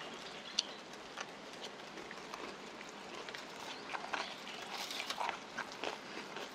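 Close-miked chewing and mouth noises of a person eating a mouthful of sea squirt bibimbap, with irregular small clicks and scrapes of a spoon and chopsticks in the bowl, busiest a few seconds in.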